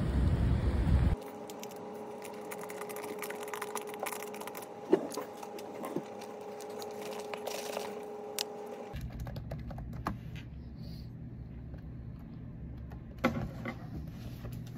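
Wind rushing on the microphone for about a second, then a sudden cut to a quiet room with a steady hum and scattered small clicks, taps and rattles of a plastic drink bottle and desk items being handled.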